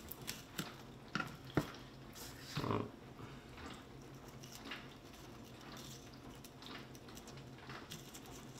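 Light kitchen handling sounds at a cutting board while a knife is taken up to fillet a fish: a few sharp little clicks and knocks in the first two seconds, one louder, duller knock about two and a half seconds in, then quiet room tone with faint small clicks.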